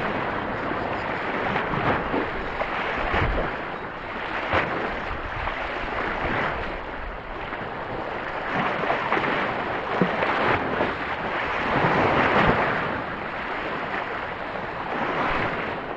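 Sea surf washing and breaking over a shallow rocky reef, a steady rushing that swells and fades every few seconds as waves come in, with wind on the microphone.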